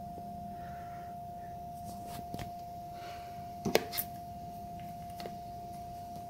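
ED1000 frequency-shift telex signal from the PC sound card, holding a steady tone of about 700 Hz with no shifts, so no characters are being sent. A few sharp clicks sound over it, the loudest about halfway through.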